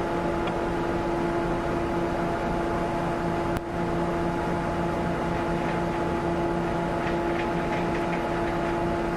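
A steady engine hum under a constant rushing hiss of floodwater and rain.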